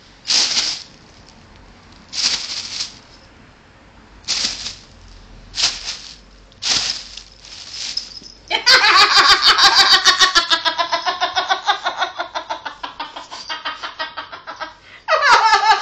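A few short breathy bursts, then from about halfway a long run of loud, rapid, pulsing human laughter.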